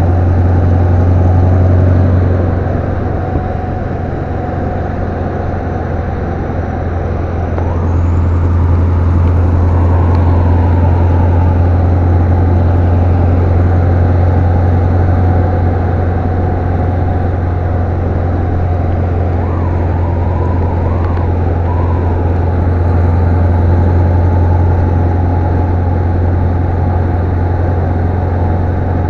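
Scania 143-450's V8 diesel engine running steadily at road speed, heard from inside the cab. It drops a little in loudness about two seconds in and picks back up about eight seconds in.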